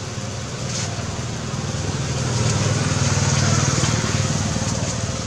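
Steady street traffic noise with a low engine rumble that grows louder in the middle, as a motor vehicle passes, then eases off.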